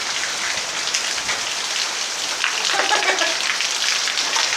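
Steady rain falling, an even hiss with many small drop impacts.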